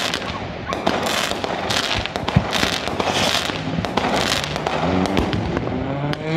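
Many fireworks going off at once across a city: a dense run of bangs and pops, with hissing, crackling bursts coming again and again.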